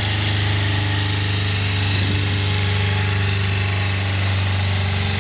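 1992 Suzuki GSX400S Katana's inline four-cylinder engine idling steadily and evenly, with no abnormal noise.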